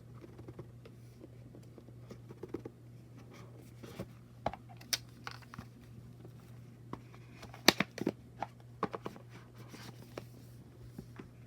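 Oracle deck cards being handled: soft paper rustling with scattered sharp clicks and taps as cards are moved and set down, the loudest run of clicks about two-thirds of the way through. A steady low hum sits underneath.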